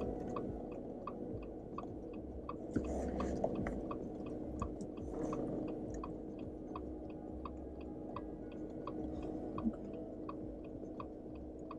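Jeep Wrangler JL heard from inside the cabin, driving slowly off-road with a steady low engine hum and rumble, and a rapid, regular light ticking at about three ticks a second.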